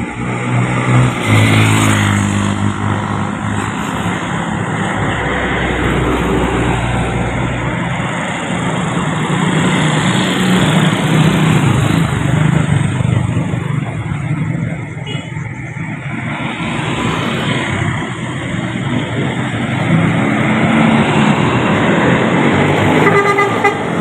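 Road traffic passing close: motorcycles, a truck and a bus running by, with vehicle horns sounding several times.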